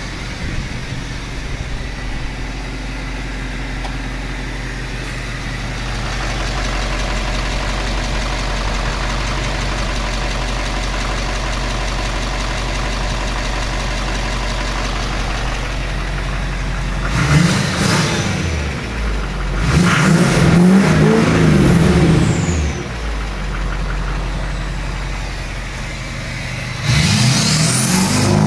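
LBZ Duramax 6.6-litre V8 turbodiesel idling steadily through a 4-inch exhaust, then revved: a short blip about two-thirds of the way through, a longer rev a few seconds later, and another near the end. A high whistle rises and falls with each rev.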